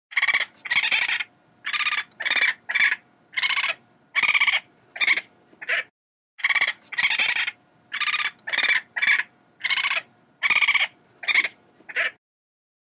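An animal's short, high-pitched calls, repeated about two a second, in two runs with a short pause between them.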